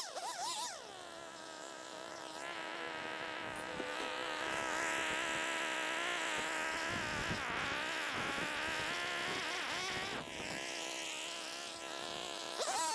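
Small two-stroke engine of a handheld landscaping power tool running steadily at high speed, a buzzing drone with a brief dip in the middle and again a few seconds later.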